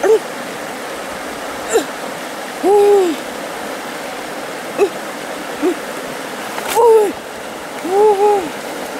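Steady rush of flowing stream water, with repeated short hooting calls that rise and fall in pitch, some brief and some longer, and a couple of sharp clicks.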